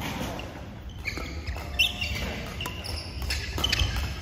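Badminton rally: rackets striking the shuttlecock with sharp clicks, the loudest about two seconds in, mixed with short high squeaks of court shoes on the mat and footfalls.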